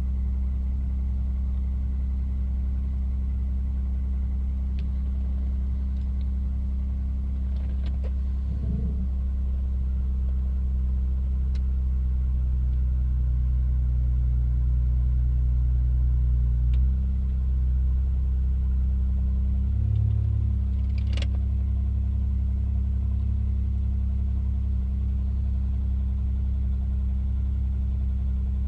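MG ZS 180's 2.5-litre V6 engine running steadily at idle, its note shifting briefly a couple of times, with one sharp click about two-thirds of the way through. The engine is the one whose knock the owner is showing.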